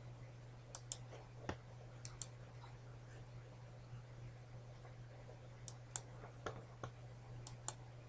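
Computer mouse clicking: a scattering of short, sharp clicks, several in quick pairs, over a faint steady low hum.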